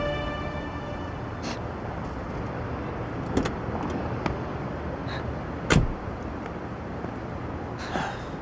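A car's engine running as it pulls up and stops, with a few clicks of the door being opened, then a car door shut with a single solid thump a little past halfway, the loudest sound. Background music fades out at the start.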